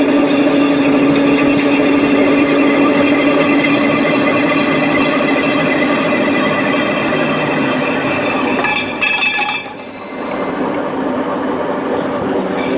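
CNC pipe cutting machine running and cutting steel pipe, a loud steady machining tone with metal clinking. About nine seconds in it changes with a brief rattle, dips in level, then picks up again.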